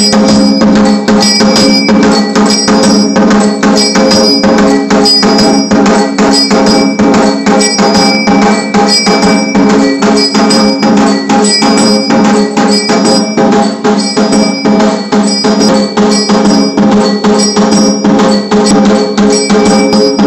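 Electric automatic aarti machine ringing brass temple bells and striking percussion in a fast, unbroken mechanical rhythm, about five strikes a second, with a steady low hum beneath.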